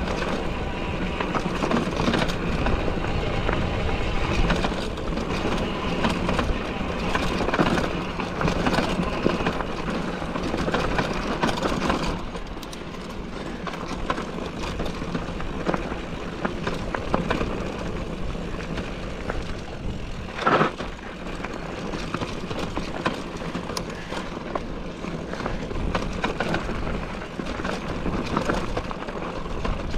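Mountain bike rolling over a rough dirt trail: steady tyre rumble with constant clicking and rattling from the bike. A brief louder sound about twenty seconds in.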